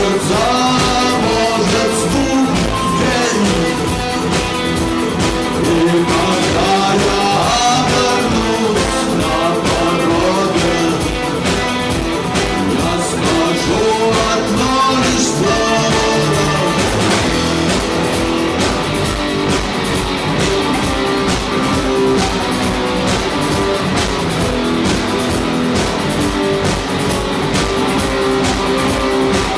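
Rock song: singing over guitar with a steady drum beat.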